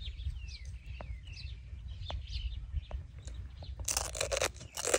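Small birds chirping repeatedly in short falling notes; from about four seconds in, loud crunching as a bite of papaya with sticky rice is taken and chewed.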